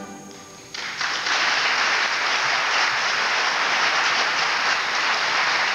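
A junior high concert band's final chord fades away, then audience applause starts under a second in and continues steadily.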